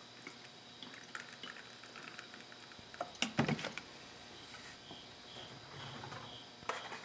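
Water being poured from a plastic jug into a motorcycle's plastic coolant reservoir and sloshed around inside it to rinse it out, with small drips and clicks and a short plastic knock about three seconds in.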